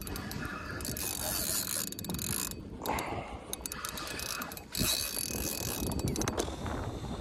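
Penn spinning reel's drag clicking rapidly in several bursts as a big fish pulls line off against it.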